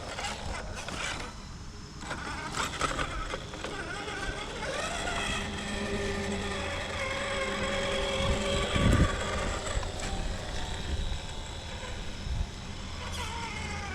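RC rock crawler's brushed 550 electric motor (Holmes Hobbies 13-turn, 3-slot) and geared drivetrain whining under throttle. The whine comes in about four seconds in, holds fairly steady with small shifts in pitch, and eases off after about ten seconds.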